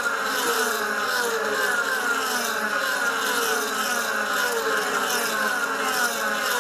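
Several DTM race cars' 4.0-litre V8 engines at racing speed, overlapping, their pitch falling again and again as the cars come past.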